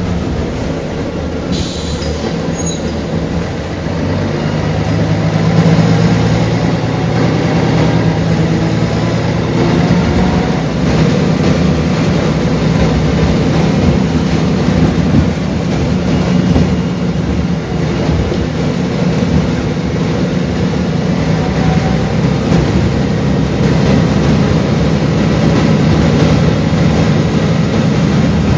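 Mercedes-Benz O405GN articulated bus under way, its six-cylinder horizontal diesel engine running with a steady drone over road noise. The engine note strengthens about four seconds in.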